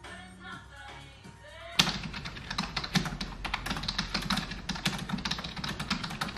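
Brief music from a TV programme, then, from about two seconds in, fast typing on a computer keyboard: a dense run of quick key clicks.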